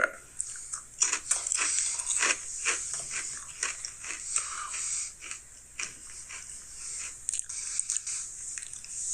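Someone chewing Ruffles Queso Cheese potato chips: a run of irregular crisp crunches.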